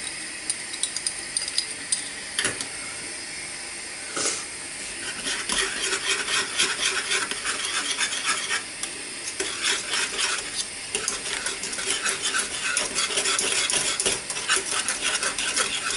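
Wire whisk beating chopped parsley into a thickened white sauce in a saucepan, the wires clinking quickly and steadily against the pan, faster and busier from about five seconds in.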